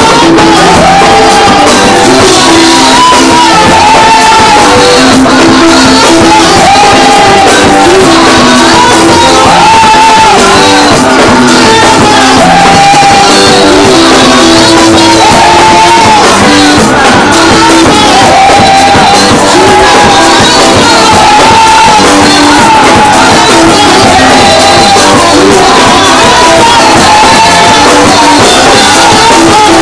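Live gospel praise music played very loud: a singer's voice carrying the melody over a band, with shouts from the congregation.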